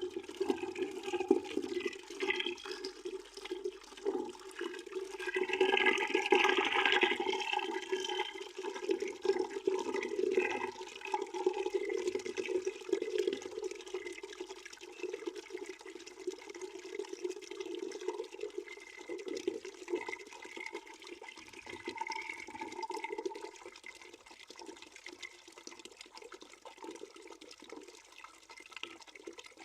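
Water pouring into a bucket: a steady gushing and splashing that grows quieter over the last several seconds.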